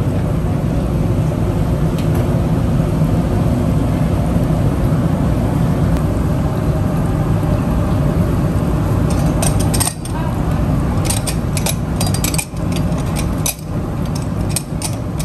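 Steady low rumble of kitchen machinery running throughout. From about nine seconds in, a run of sharp clinks and knocks as a metal ladle and strainer meet the crockery.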